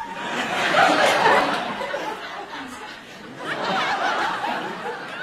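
Studio audience laughing in two swells, the second rising about three and a half seconds in.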